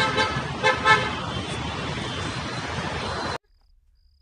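Street traffic noise with two short vehicle horn toots in the first second. The noise cuts off abruptly about three and a half seconds in, leaving near quiet with faint, evenly spaced high chirps.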